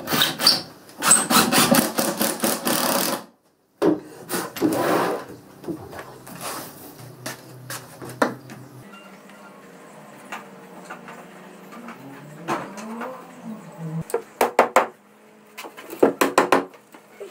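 Cordless drill driving long screws into a solid pine frame for about three seconds, stopping suddenly. This is followed by quieter handling of the wood and a run of quick taps near the end.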